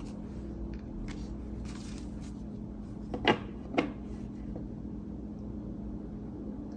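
Tarot cards being handled with a few faint rustles, then two sharp taps about half a second apart as a card is laid down on the spread, over a steady low hum.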